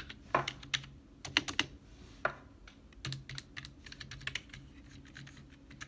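Keys of a Rii gaming keyboard being pressed, clicking irregularly: single strokes and short quick runs of several keys.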